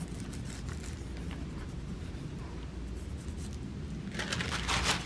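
Hands pressing and rubbing a sheet of thin paper onto an inked gel printing plate: a soft, dry rubbing of paper. A louder rustle of the paper comes near the end.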